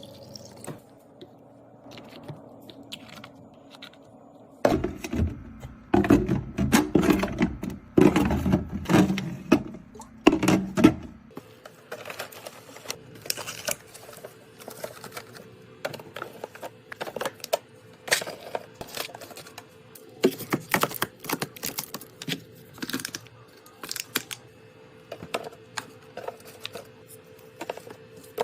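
Drinks and snacks being handled and set into a mini fridge: repeated clinks, clicks and knocks of cans, bottles and packaging. A louder stretch of heavier thuds and clattering runs from about five to eleven seconds in.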